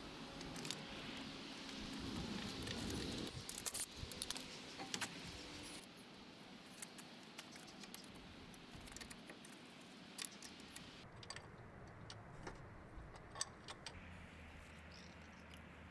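Hand tools and metal parts clinking and clicking now and then over a faint background hiss, as a car's transmission is being taken apart and removed. The background changes abruptly about six seconds in and again about eleven seconds in.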